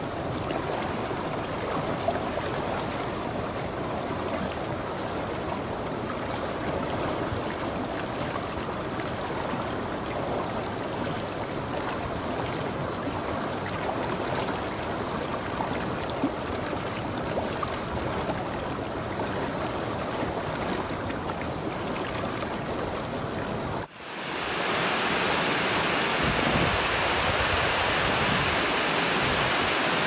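A mountain stream rushing over rocks and a small cascade, a steady splashing flow. About two-thirds of the way through it cuts to a waterfall pouring down a rock face, louder and more hissing.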